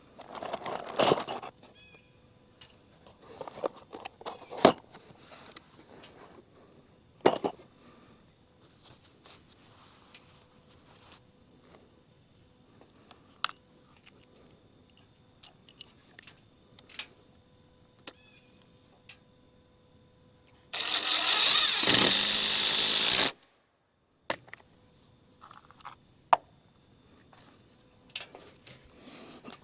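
Scattered knocks and taps of timber-framing work. About 21 s in, a loud power tool runs steadily for about two and a half seconds and cuts off abruptly.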